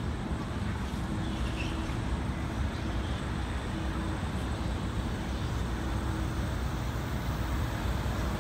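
City street traffic noise: a steady low rumble of cars passing on a downtown street.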